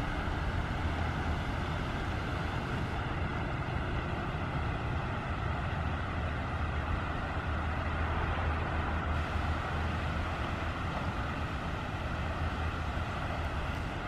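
Steady rushing of a fast-flowing flooded river's current.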